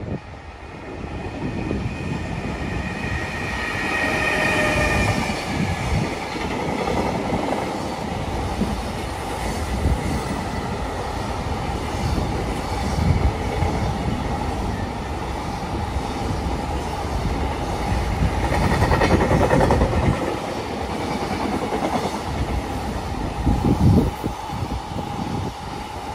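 JR Freight EF210 electric locomotive hauling a long container freight train past, a steady rumble with the rhythmic clatter of wagon wheels over rail joints. A few brief high steady tones sound about four seconds in.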